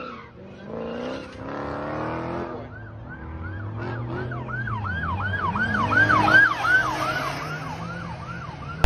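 Emergency-vehicle siren in a fast yelp, rising and falling about three times a second, starting about three seconds in, growing louder and then easing off a little, over a vehicle engine's low rumble. In the first couple of seconds a car engine revs.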